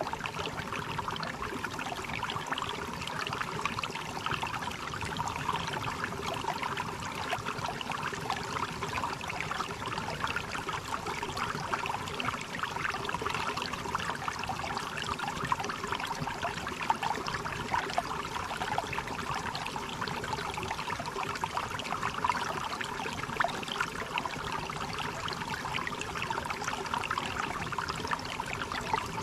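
Stream water running, with a steady babble and trickle.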